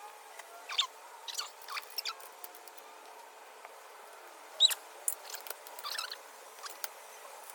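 Scattered short clicks, clinks and brief squeaks of hand tools and steel car-seat rails being handled during unbolting, the loudest clink a little past halfway.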